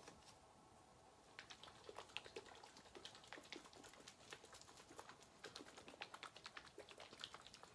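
Faint, quick, irregular light clicks and taps from a glass bottle of herb-filled oil being handled.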